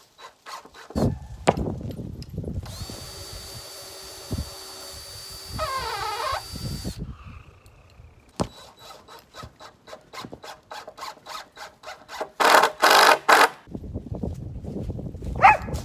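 Power drill driving screws into a wooden frame: a steady motor whir for a few seconds, then a run of quick, even clicks, then a shorter, louder burst of drilling.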